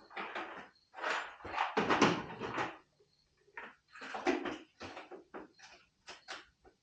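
Loose bolts and other hardware clattering and rattling as someone rummages through a hardware organizer, in irregular bursts with the loudest jumble about two seconds in.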